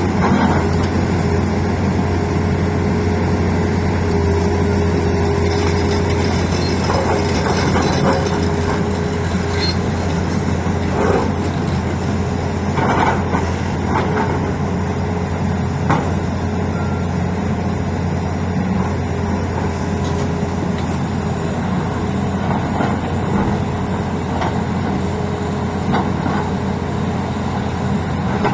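Tata Hitachi excavator's diesel engine running steadily, with a handful of short knocks scattered through.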